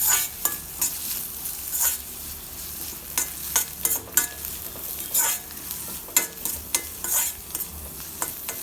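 Sliced onions with green chilli and curry leaves sizzling in hot oil in a kadai while a spoon stirs them, with irregular scrapes and clicks against the pan.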